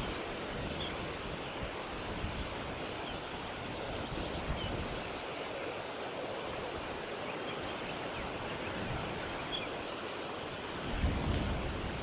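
Steady wind noise outdoors, with a low gust buffeting the microphone near the end and a few faint, short high chirps.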